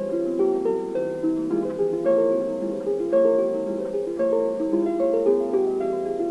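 Background music: a solo harp playing a brisk, steady stream of plucked notes.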